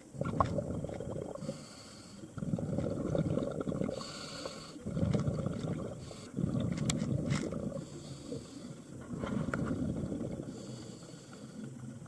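Scuba diver breathing through a regulator: a short hiss on each inhale, then a longer low rumble of exhaled bubbles, repeating about five times.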